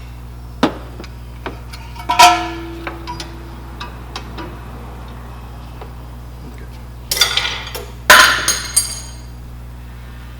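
Metal clinking and clanking of brake parts and hand tools being handled: a few light clicks, a loud clank about two seconds in that rings briefly, and two clattering bursts of metal on metal near the end, over a steady low hum.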